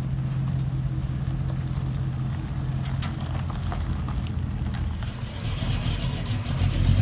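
Hummer H2's V8 engine running steadily as the truck drives slowly away, a low even hum. About five seconds in, the sound turns louder and deeper, with more hiss.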